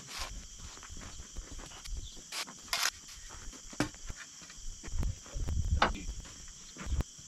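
Steady chorus of insects, crickets or similar, with scattered short scrapes and knocks and a few low thuds.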